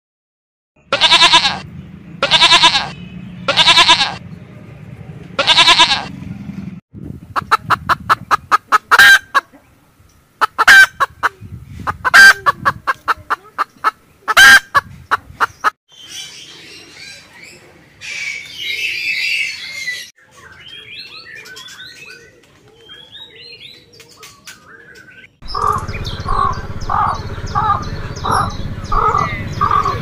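Domestic fowl calling: four loud calls, then a fast run of clucking calls. After a stretch of faint high chirps, geese honk in a steady rhythm for the last few seconds.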